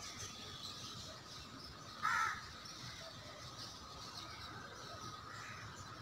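A crow gives one loud caw about two seconds in, over faint chirping from other birds.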